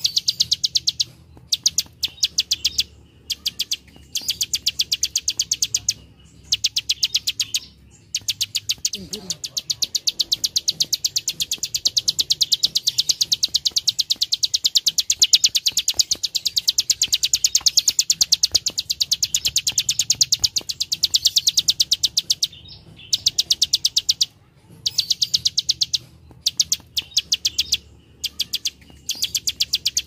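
Plain prinia (prenjak sawah) singing its dry 'klik klik' song: fast trains of sharp, high ticks, many a second. They come in runs of one to two seconds with short pauses between, and one long unbroken run of about fourteen seconds in the middle.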